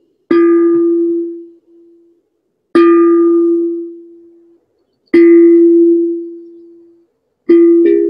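Steel tongue drum struck with mallets: four single strikes on the same note, about two and a half seconds apart, each ringing out and fading. Near the end the strikes come quicker and a second, higher note joins in.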